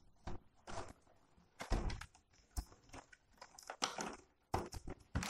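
Cardboard box being opened by hand: flaps pulled open and scraped against each other, with irregular short rustles and knocks.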